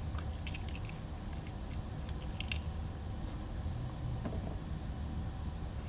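Light clicks and small rattles of small parts being picked up and handled on a workbench, over a steady low room hum.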